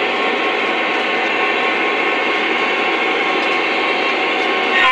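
Lionel O-scale model diesel locomotive running along the track with a steady whir and rumble of its motor and wheels. Its horn starts to sound right at the end.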